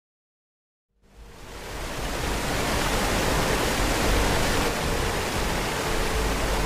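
Rushing water of a waterfall, a steady roar with a deep low rumble, fading in about a second in and holding steady.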